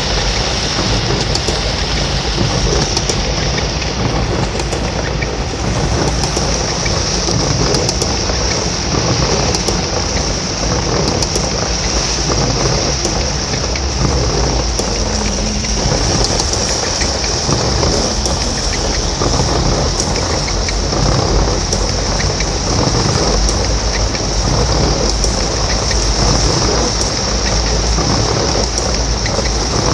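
Heavy rain falling steadily, with a continuous low rumble underneath.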